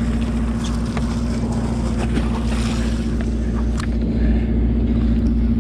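A fishing boat's engine running steadily, a constant droning hum with a few faint clicks and knocks on deck.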